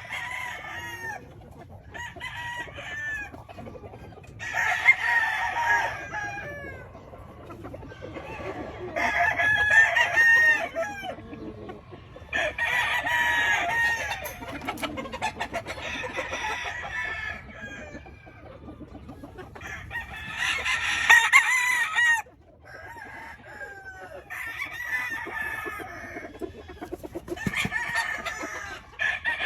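Several gamefowl roosters crowing one after another, some crows overlapping, with clucking between them.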